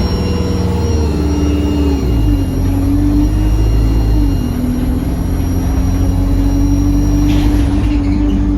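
Single-deck bus diesel engine pulling under way, its pitch dropping twice with gear changes. Over it runs a thin, very high turbocharger whistle that rises and falls with the engine and stops near the end.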